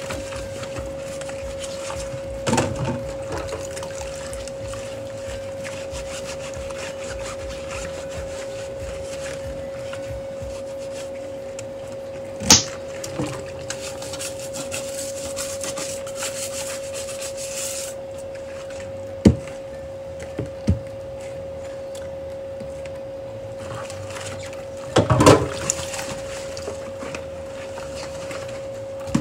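Dishes being hand-washed in a soapy sink: rubber-gloved hands scrubbing plates and plastic containers, with a few sharp clinks and knocks of dishware, the sharpest about twelve seconds in and a cluster near the end. A steady high hum runs underneath throughout.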